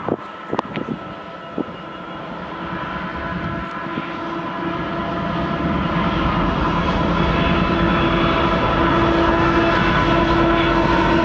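Several Union Pacific diesel-electric freight locomotives approaching with a steady engine drone that grows louder and then holds. A few sharp clicks come in the first two seconds.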